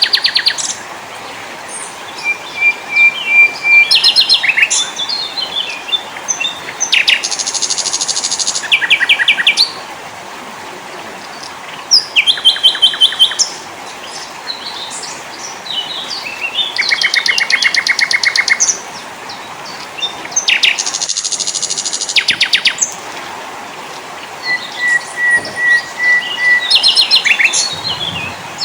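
Several small songbirds singing in turn: fast trills, rattling chatters and runs of short, high repeated notes, over a steady background hiss.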